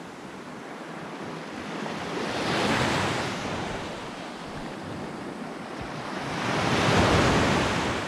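Small waves breaking and washing up a sandy beach at the shoreline. The surf swells twice, about three and seven seconds in, and the second swell is louder.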